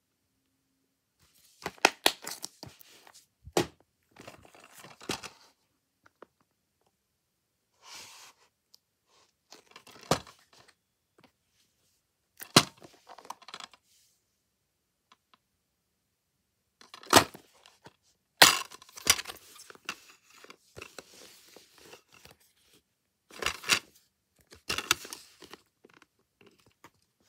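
Plastic DVD cases being handled: a series of sharp snaps and clicks as cases are opened and closed and discs are pressed on their hubs, with softer plastic rustling and scraping between them. The sounds come in separate bursts with short quiet gaps.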